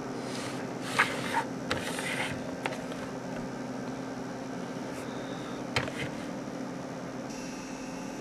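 Handling noise: rustling and several sharp clicks and knocks of objects being handled, most of them in the first couple of seconds and two more near the six-second mark, over a steady low hum.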